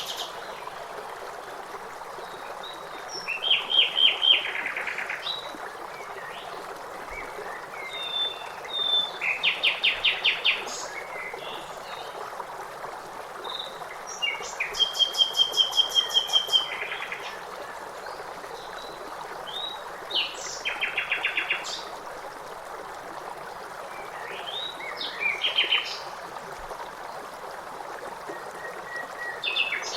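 A songbird singing short phrases that end in rapid trills, one about every five seconds, over a steady rush of running water.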